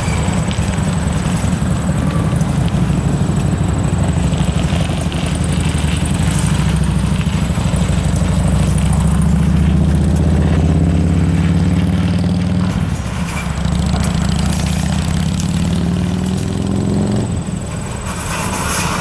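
Diesel locomotive engine running: a loud, low throb that shifts in pitch, easing off near the end.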